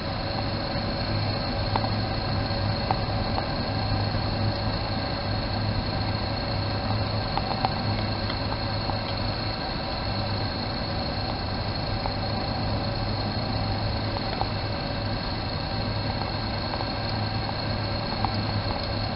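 Toyotomi laser-burner kerosene heater resonating with a steady low drone and fainter high tones, the steam-whistle-like noise this burner makes when it is short of combustion air.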